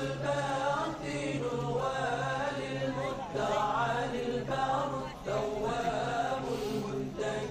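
Devotional Islamic chanting: a melodic vocal chant in long phrases of about a second each with short breaks between them, over a steady low hum.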